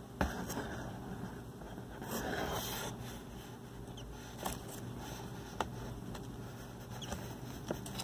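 Scattered small clicks and a short rustling scrape in a cardboard box as a nestling bird is hand-fed with metal forceps, the rustle coming about two seconds in.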